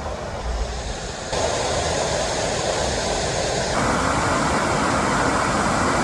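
Waterfall rushing as a steady roar of water, getting louder in two sudden steps, about a second in and again midway.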